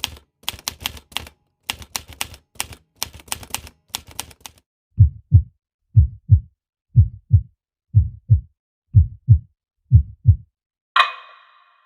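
Stock sound effects in sequence: rapid, irregular typing clicks for about four and a half seconds, then a heartbeat of deep paired thumps, six beats about a second apart. Near the end a ringing metallic hit begins.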